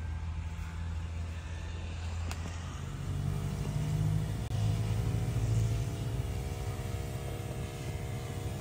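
Motorised garden sprayer pump running with a steady mechanical drone while spraying liquid through a hand wand. About three seconds in, its tone steps up slightly and holds.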